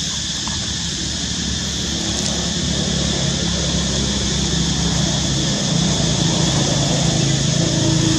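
Steady outdoor background with a continuous high hiss, and a low motor-vehicle engine hum that grows louder from about three seconds in.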